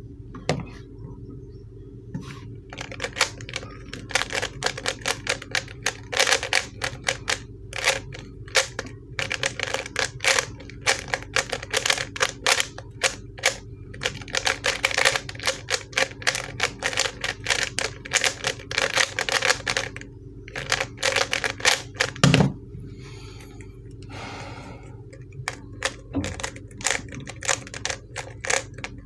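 ShengShou 3x3 speed cube being turned rapidly through a speedsolve: a fast, uneven run of plastic clicks and clacks from the layer turns, starting about two seconds in. It ends about twenty seconds later with a single thump. The owner finds this cube very stiff to turn.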